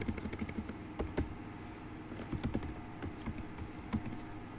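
Computer keyboard being typed on: a run of irregular key clicks, the sharpest right at the start.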